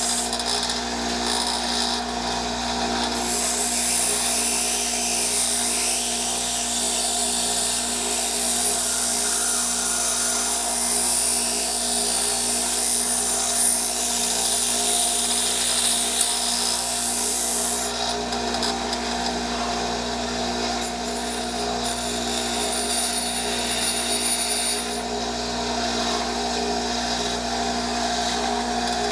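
Grinder running steadily with a whine, grinding the metal of a windshield wiper blade into a lock pick; the high grinding hiss comes and goes as the metal is worked against the wheel.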